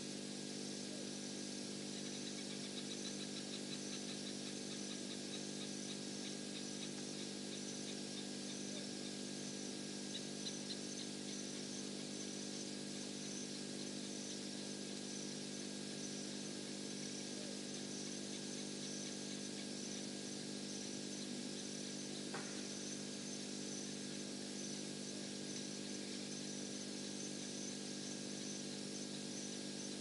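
Night bush ambience: insects chirping steadily in fast high-pitched pulses over a steady low hum. A rapid ticking trill runs through the first third, and one short falling call comes about two-thirds of the way in.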